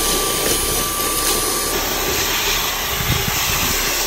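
Handheld cordless vacuum cleaner running steadily, its nozzle sucking loose chaff off a car's floor mat and leather seat.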